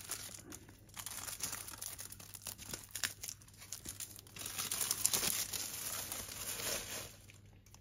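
Plastic shrink wrap being torn and crumpled off a Blu-ray box set: a dense crinkling and crackling that stops near the end.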